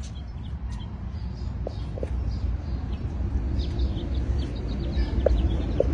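Outdoor background noise: a steady low rumble that grows slightly louder, with scattered faint, short high chirps or ticks.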